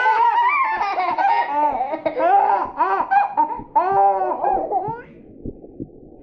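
High-pitched laughter, a rapid string of bouncing ha-ha notes that stops about five seconds in, leaving only a faint low background with a few soft ticks.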